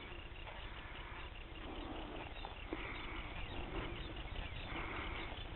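Faint outdoor ambience: a steady low rumble, likely wind on the microphone, with a few faint scattered animal calls.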